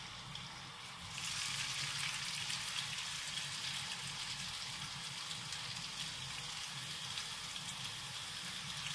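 Salmon burger patties sizzling in a little oil in a non-stick frying pan. The sizzle grows louder about a second in, as a second patty goes into the pan, then holds steady.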